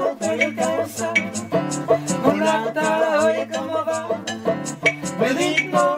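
Live acoustic music: a plucked guitar keeps a steady rhythm under a sliding melody line with vibrato.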